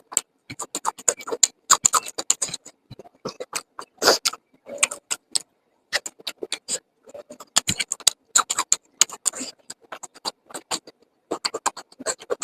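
A person chewing and eating: a dense, irregular run of short wet clicks and mouth smacks.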